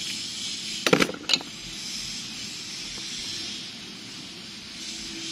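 Small clicks and scraping of a craft-knife blade prying up the corner of the film on the back of an LCD glass panel, with a few sharp clicks about a second in, over a steady faint hiss.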